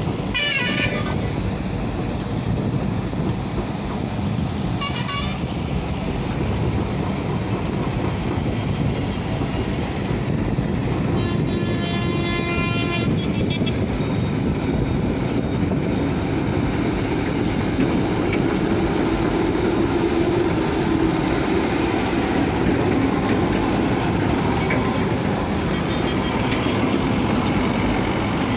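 Diesel engine of a JCB backhoe loader running steadily under work. Vehicle horns honk over it three times: once at the start, once about five seconds in, and for about two seconds near the middle.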